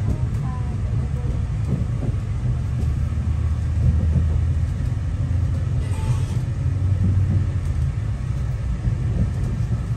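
Steady low rumble of a Northern Ireland Railways diesel multiple-unit train running along the track, heard from inside the carriage. A short hiss comes in about six seconds in.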